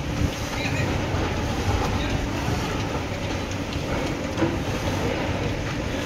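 Demolition at a distance: a long-reach excavator running with a steady low rumble, with scattered clanks and knocks as it breaks up concrete debris.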